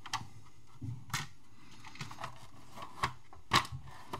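Hard plastic computer case and circuit board being handled: a few sharp taps and knocks with light rubbing between them, the loudest knock about three and a half seconds in.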